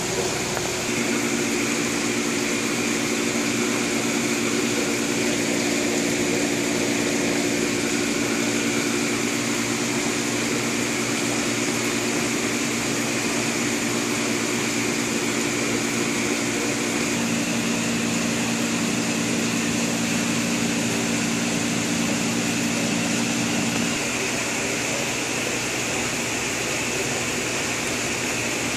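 Steady hum and hiss of aquarium aeration in goldfish tanks: air pumps running and air stones bubbling. A low hum sits under the hiss, and its tones shift a few times.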